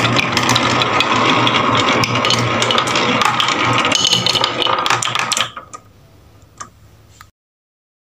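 Wooden balls rolling and clattering down a wooden HABA marble run, a dense stream of rattling clicks. It dies away about five and a half seconds in, leaving a few last clicks before the sound cuts off.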